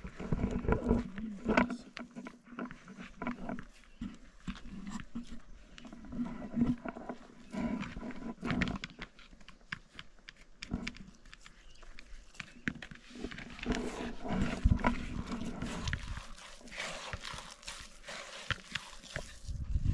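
A puppy making intermittent sounds, on and off, mixed with scattered short knocks and rustling.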